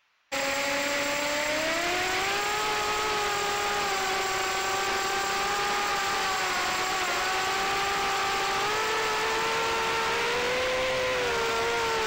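FPV racing quadcopter's brushless motors whining, cutting in suddenly about a third of a second in and rising in pitch as it lifts off, then wavering up and down in flight and falling in pitch near the end. Heard through the drone's own onboard camera, with a steady hiss under the motor whine.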